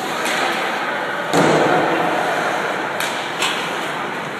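Ice hockey play echoing through an arena: a loud bang about a second and a half in that rings round the rink, then two lighter clacks of stick or puck a couple of seconds later.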